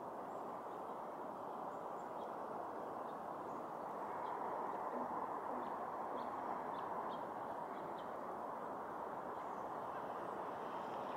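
Steady outdoor background noise, a little louder from about four seconds in, with a few faint, short, high bird chirps scattered through the middle.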